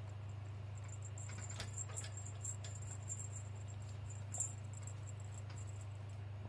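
Faint, scattered light clicks and taps over a steady low hum, clustered in the first half, with the sharpest tap about four seconds in.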